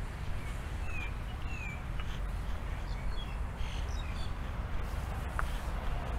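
Birds giving a few short chirping calls, bunched in the first couple of seconds with a few higher notes in the middle, over a steady low rumble.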